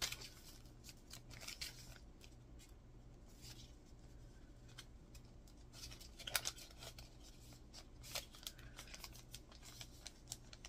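Vellum sticker bag and sticker sheets being handled: soft, scattered rustling and crinkling of paper, with a sharper crackle about six seconds in.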